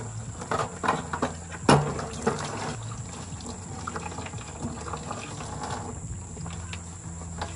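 Water pouring and splashing while dishes are washed by hand, with several sharp knocks and clinks; the loudest comes just under two seconds in.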